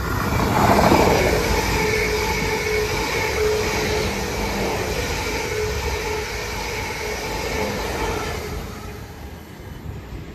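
Class 444 electric multiple unit running through the station at speed: a loud rush of wheels on rail that peaks about a second in, its pitch dropping as it passes, then a steady whine that fades away after about eight seconds.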